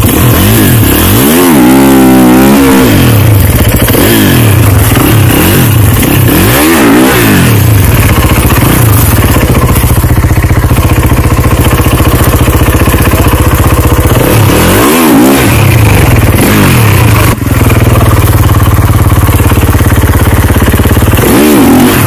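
Kawasaki KX snowbike engine revved hard, close to the microphone, while the bike is bogged in deep snow. The revs rise and fall several times in the first half, then are held high and steady, with one brief dip about three-quarters of the way through.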